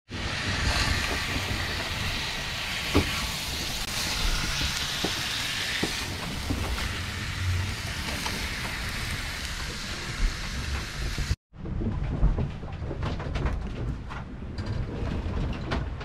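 Mahi-mahi fillets sizzling in a frying pan, a steady hiss over a low rumble. After a cut about eleven seconds in, the sizzle stops and only the low rumble remains, with a few light knocks.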